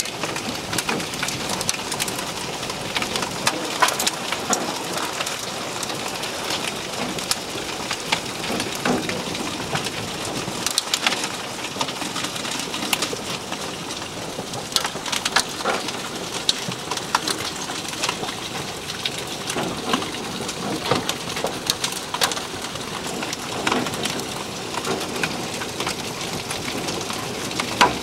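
Hail and heavy rain falling on a car and the ground: a steady hiss of rain with many sharp ticks and clacks of hailstones striking, some bouncing off the car's roof and moonroof.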